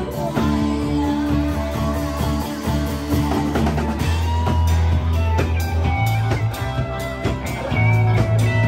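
Live rock band playing: electric guitars over held bass notes and a steadily struck drum kit.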